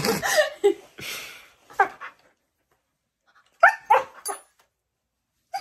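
A dog barking in short bursts, separated by quiet gaps, while it play-attacks a person.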